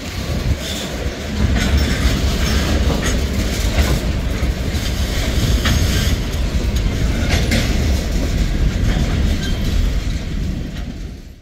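Freight train tank cars and a covered hopper rolling past at a grade crossing: a steady low rumble of steel wheels on rail, with scattered clicks and clacks as the wheels cross joints. The sound cuts off abruptly at the end.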